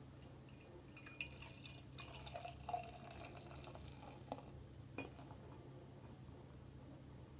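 Beer pouring from a glass bottle into a tilted drinking glass, a faint trickle with a few small glassy clicks, the clearest about four and five seconds in.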